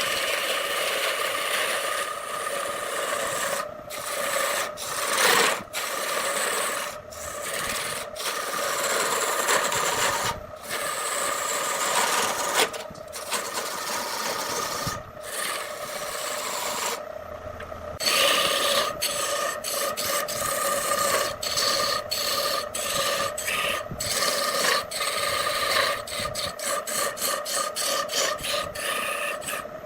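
Wood turning on a lathe: a chisel or gouge scraping and cutting into the spinning wood over a steady whine from the lathe. The sound drops out briefly many times, more often toward the end.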